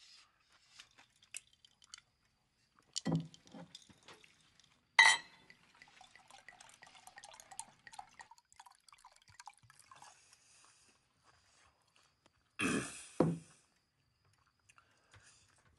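Quiet dinner-table sounds: metal cutlery clinking against plates and glassware, with one sharp clink about five seconds in. Two short vocal noises, one about three seconds in and a double one near the end.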